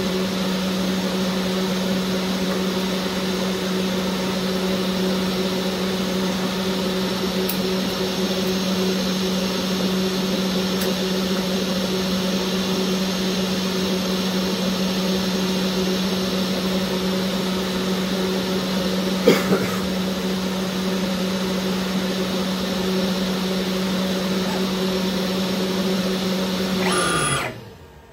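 High-speed engraving spindle running steadily, a constant hum with a hiss over it, while the bit engraves an anodised aluminium tube turned on a CNC-controlled hobby lathe. A short click comes about two-thirds of the way through, and near the end the spindle switches off and winds down with a falling whine.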